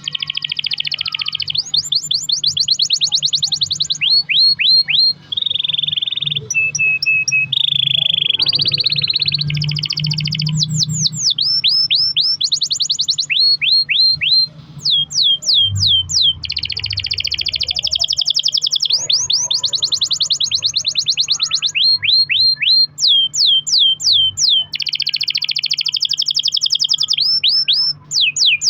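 Domestic canary singing long rolls: fast trills and runs of repeated downward-sweeping whistled notes, changing from phrase to phrase with only brief pauses.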